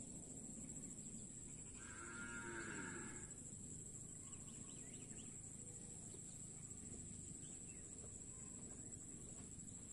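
A cow moos once, faintly, about two seconds in, for a little over a second, over a quiet steady outdoor background with a continuous high whine.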